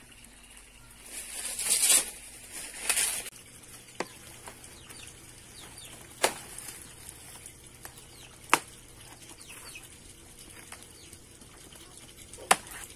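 Large banana leaves rustling and flapping as they are handled and pulled from the plant, with two loud rushing swells in the first few seconds, then several sharp snaps a couple of seconds apart as the leaves are broken off.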